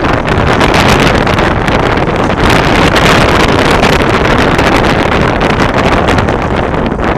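Loud, steady rushing of wind buffeting the microphone.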